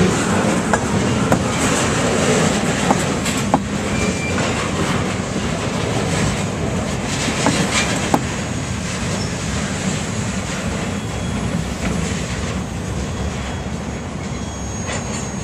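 Freight cars rolling past on the track: a steady rumble of steel wheels on rail with scattered sharp clicks and a couple of brief wheel squeals, slowly getting quieter.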